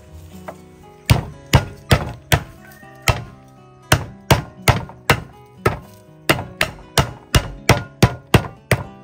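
Steel cleaver chopping lemongrass stalks on a thick wooden stump chopping block: a run of about eighteen sharp chops, two to three a second, beginning about a second in with a short pause in the middle. Background music plays underneath.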